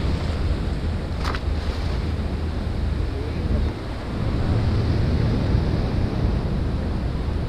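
Sea surf washing against the rocks of a breakwater, with wind buffeting the microphone in a steady low rumble. A brief click about a second in.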